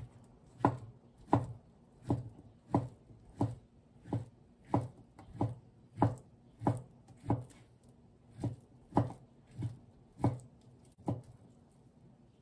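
Kitchen knife slicing through satsuma-age (fried fish cake) and knocking on a wooden cutting board in steady strokes, about three every two seconds, which stop shortly before the end.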